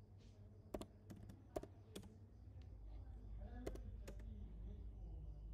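Computer keyboard keystrokes: a handful of sharp, separate key clicks over about four seconds as a sudo password is typed and a 'y' confirmation is entered, over a faint low hum.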